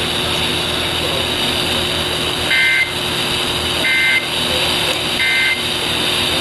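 Emergency Alert System end-of-message signal: three short two-tone data bursts about a second and a half apart, over steady radio static hiss, marking the close of the severe thunderstorm warning.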